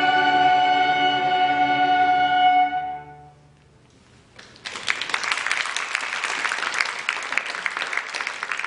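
A string and woodwind ensemble holds a final sustained chord that dies away about three seconds in. After a brief hush, the audience applauds, a dense patter of many claps, until the sound cuts off at the end.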